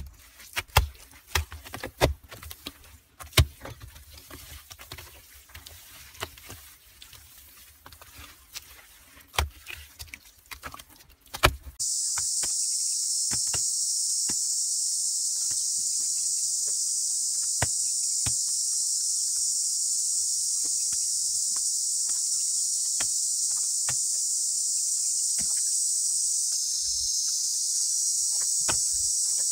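Scattered sharp slaps and pats of hands working wet mud onto a pit wall. About twelve seconds in, a loud, steady, high insect drone cuts in suddenly and carries on, with a few faint taps under it.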